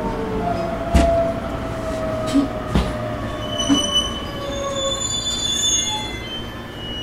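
Toyo Denki GTO-thyristor VVVF inverter of a JR East E127-100 series electric train, heard from inside the motor car, whining in a slowly falling pitch as the train brakes and slows, then cutting out about five seconds in. Two sharp knocks come about one and three seconds in, and high squealing rises late on as the train comes to a stop.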